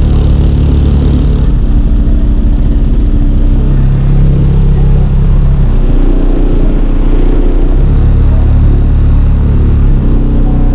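Very loud bass from a minivan's two DS18 Hooligan 15-inch subwoofers, heard from outside the van. Deep held notes shift pitch every couple of seconds.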